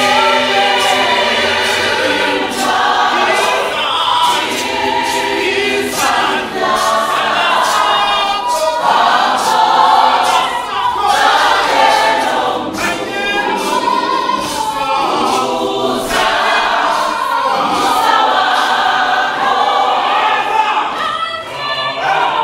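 Large mixed gospel choir singing in harmony, with sharp hand claps over the voices.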